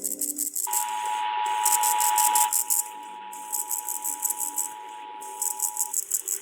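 Emergency Alert System two-tone attention signal, a steady dual tone that starts just under a second in and holds for about five seconds. A rhythmic high-pitched rattle, like a shaker, runs underneath the whole time.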